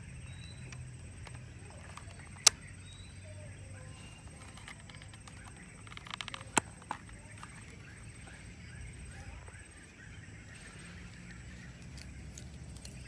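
Plastic clicks from a Kodak M35 film camera being handled: one sharp click about a fifth of the way in as the winding handle is pulled up, then a short cluster of clicks about halfway through as the back cover is unlatched and opened. A faint outdoor background runs underneath.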